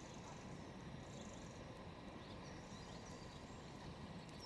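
Faint outdoor background noise with a few short, distant bird chirps.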